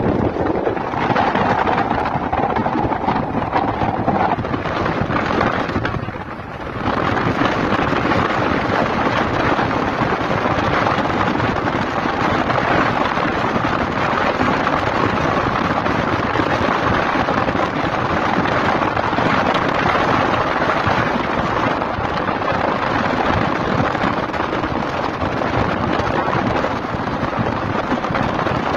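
Wind rushing over the phone's microphone with the road noise of a moving car, a steady loud rush that dips briefly about six seconds in.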